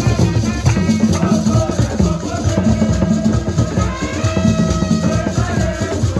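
Music with a heavy drum beat and a melody over it.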